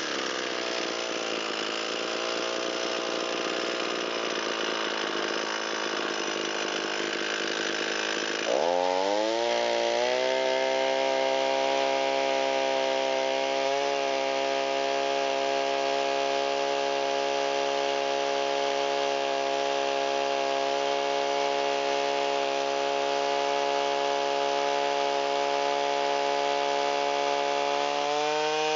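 Two-stroke engine of an Echo SRM225 string trimmer running. It is uneven at first, then at about eight seconds in it revs up quickly to full throttle and holds a steady high-pitched scream. Near the end the pitch rises a little further as the carburetor mixture is tuned.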